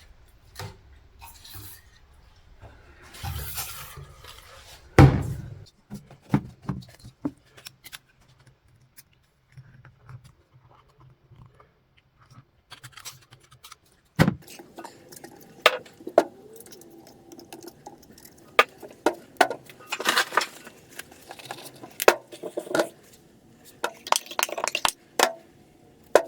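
Air-cooled VW engine parts handled on a bench: scattered metallic clinks, knocks and short scrapes as a cylinder and piston are picked up and moved about, with a couple of louder knocks.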